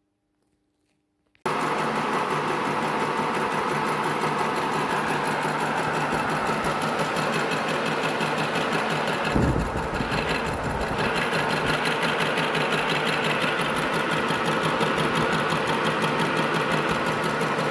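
Milling machine running and taking a light skim cut of about a tenth of a millimetre off the planer's cross slide, a steady, finely rhythmic cutting noise that starts abruptly about a second and a half in. A short low thump comes about halfway through.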